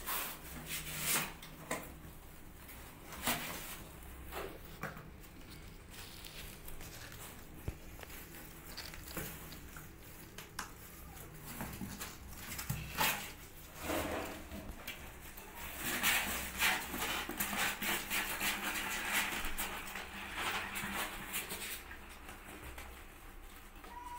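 Kittens' claws scratching and scrabbling on a cardboard box as they climb its walls, with scattered knocks against the cardboard. The scratching grows denser and louder past the middle, then thins out.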